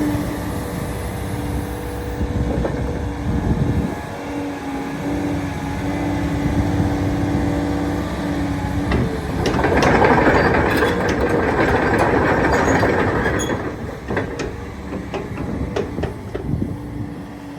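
Komatsu PC490LC-11 excavator's diesel engine running with a steady hum; about halfway through a louder rushing, rattling noise with scattered clanks comes in for about four seconds as the machine works, then dies back to the engine.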